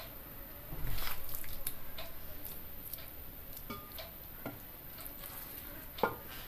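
A wooden spoon spreading thick egg masala over cooked rice in a pot: soft scraping about a second in, then a few scattered light taps and clicks of the spoon.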